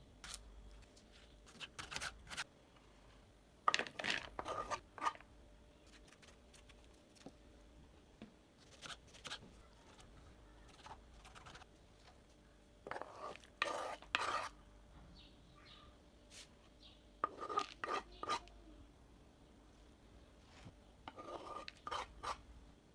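Kitchen food-preparation sounds: clusters of clinking and tapping from dishes and utensils, coming every few seconds with single taps between.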